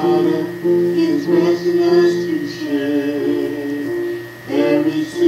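A woman singing a gospel song, holding long notes.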